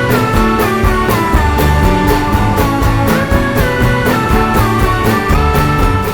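Rock-style background music with guitar and a steady beat, cutting off just after the end.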